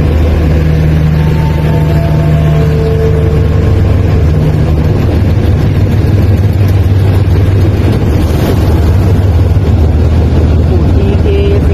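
Diesel-electric locomotive (State Railway of Thailand GE unit 4027) running close by as it slowly moves a passenger train along the platform: a loud, steady deep engine drone, with a few thin high tones in the first few seconds.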